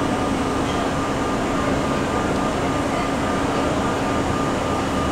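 Subway train cars running past close by: a steady rumble of wheels on rail with a low hum and a faint higher tone.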